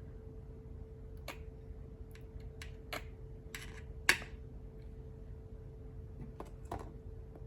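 Scattered light clicks and taps from handling paint and craft supplies, with one sharp click about four seconds in, just after a brief scratchy rustle. A faint steady hum runs underneath.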